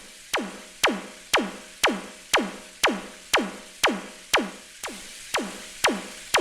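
Electronic music: a synthesized drum hit that drops quickly in pitch, repeating about twice a second in a steady beat.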